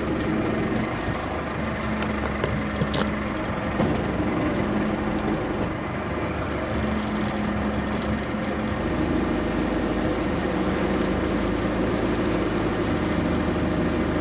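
A motorboat's engine running steadily as the boat sets off. Its low note shifts and settles into a more even hum about nine seconds in.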